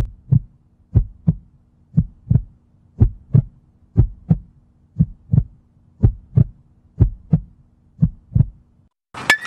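Heartbeat sound effect: slow double thumps, lub-dub, about one pair a second, nine times over a faint low hum. It stops shortly before a sharp crack near the end.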